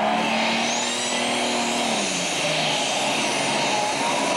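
Super stock pulling tractor's turbocharged diesel engine running at full throttle under the load of the sled, with a thin high whine climbing about a second in. The engine note drops in pitch about two seconds in.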